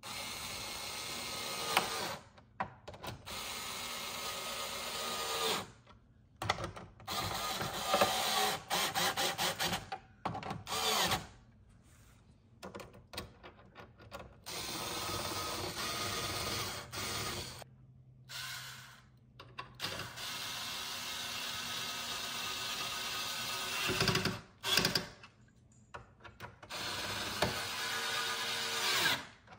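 Small handheld electric screwdriver running in spurts of a few seconds with short pauses between them, driving screws in loosely along the underside of a carbon fiber diffuser.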